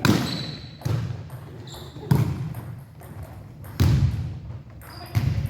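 Volleyball being struck back and forth in a partner passing drill: five sharp hits, roughly one to two seconds apart, each followed by a short echo in the gym.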